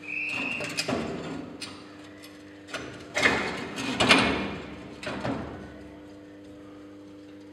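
Ceramic catalytic-converter insert being pushed and slid into its steel shell by hand, scraping and grating in several irregular bursts, the loudest a little past the middle, with a short high squeak at the very start.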